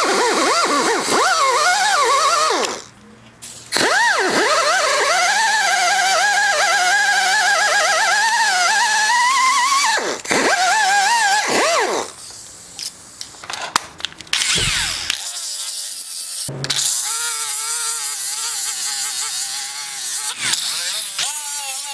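High-speed rotary tool whining as its wire cup brush scrubs rust off cast iron. The pitch sags and rises as the brush is pressed in. It stops and winds back up a few times. Near the end it gives way to a steadier, lower-pitched whine as a rotary sanding disc works the steel of the vise.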